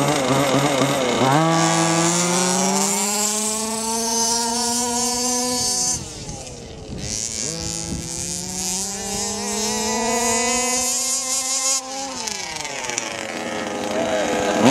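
Two HPI Baja 1/5-scale RC cars' 26cc two-stroke petrol engines, one in a Baja 5SC truck and one in a Baja 5B buggy. They idle with a warbling burble, then go to full throttle about a second in with a high, slowly rising wail. About six seconds in the pitch drops off, then the engines wind up again for a second long full-throttle run and fall back toward idle near the end.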